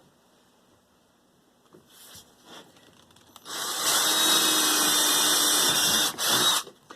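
Power drill driving a screw into a wooden cabinet door: a few light handling knocks, then the motor runs steadily for about three seconds, stops briefly and gives one short final burst.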